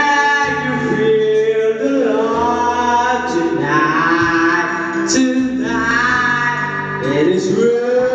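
Young man singing karaoke into a microphone, his voice amplified through loudspeakers over a backing music track, with long held, gliding notes.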